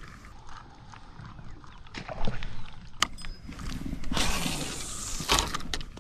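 Casting with a spinning rod and reel: a few sharp clicks from the reel, then about a second of hissing as the rod is swung and the line pays out off the spool.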